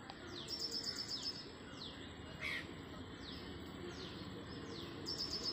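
Birds calling: a high note sliding downward, repeated about every two-thirds of a second, with a short rapid chirping trill about half a second in and again near the end.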